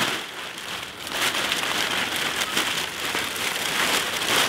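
Plastic garbage bags rustling and crinkling as they are pulled over an engine block.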